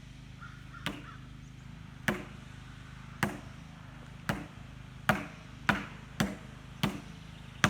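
Repeated hard blows from a hand tool on the sheet-metal casing of an old water heater: about nine sharp strikes, coming faster in the second half.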